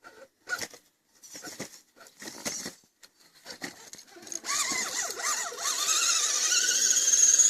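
RC crawler's electric motor and gearbox whining in short blips, then running steadily from about four and a half seconds, its pitch wavering before it settles.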